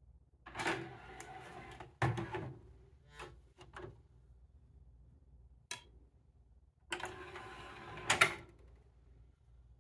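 Samsung DVD-V2000 DVD/VCR combo's disc tray motoring open, ending in a clunk about two seconds in; a few light clicks as a disc is set on the tray; then the tray motoring shut about seven seconds in, ending in a louder clunk.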